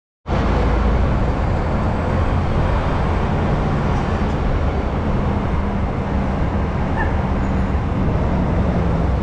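Steady rumble of a moving tour bus and street traffic heard from the open top deck, coming in after a moment of silence at the very start.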